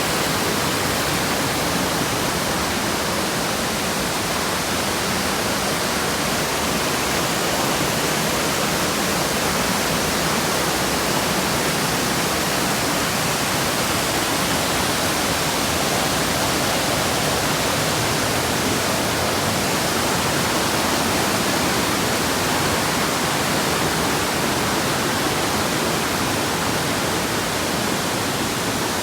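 Waterfall water falling, a steady, even rush of noise that does not change.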